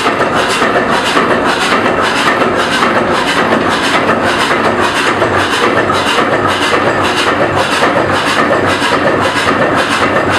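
1925 two-cylinder, 40 hp Brons slow-running marine engine running steadily: a loud, even rhythmic clatter at about three beats a second.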